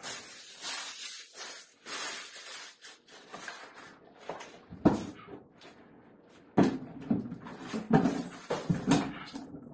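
Cardboard packaging being handled: rustling and scraping in the first few seconds, then a cardboard box knocked and shifted on a table with several dull thuds in the last three seconds.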